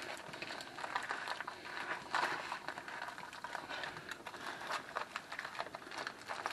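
Aluminium foil crinkling and crackling as a foil packet is folded and crimped shut by hand, in irregular crackles with a louder crunch about two seconds in.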